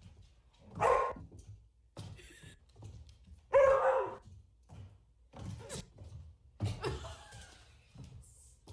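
A dog barking: two loud barks, about a second and about three and a half seconds in, and a weaker one near seven seconds, with scattered thumps and clicks in between.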